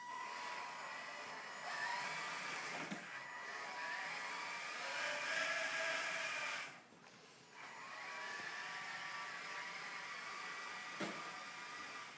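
Electric motor and gearbox of an RC Land Rover Defender 110 scale model whining as it drives, towing a boat trailer; the whine shifts in pitch with the throttle and stops briefly about seven seconds in, with a single click near the end.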